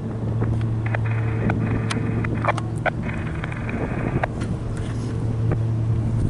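Diesel locomotive of a passing freight train running with a steady low drone, with scattered clicks and clacks and two short spells of hiss, about a second and three seconds in.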